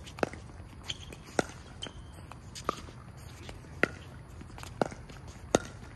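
Pickleball rally: sharp, hollow pocks of paddles hitting the plastic ball and the ball bouncing on the hard court. There are about eight of them, spaced unevenly from half a second to a second apart.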